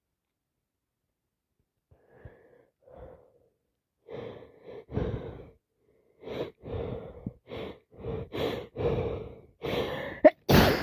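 Person with a head cold taking short, catching breaths that come faster and faster, the build-up to a sneeze, ending in a loud sudden burst right at the end.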